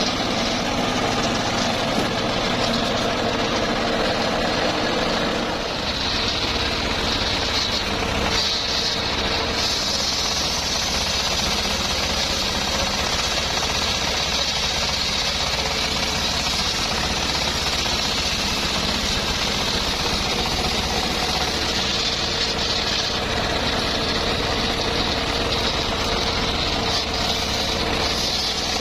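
Homemade engine-driven circular sawmill running steadily while sawing teak, the engine's low knocking rhythm under the saw's higher noise.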